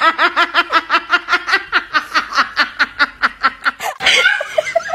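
A person laughing in a fast, high-pitched, even run of "ha-ha-ha", about seven laughs a second, that breaks off about four seconds in. A shorter, different voice sound follows near the end.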